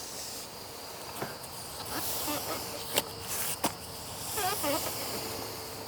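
Steady high insect buzz in the background, with a few faint clicks and soft swells of noise.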